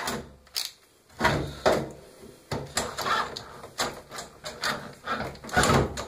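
Irregular knocks, clicks and scrapes of hand tools working on the screws of a washing machine's metal cabinet.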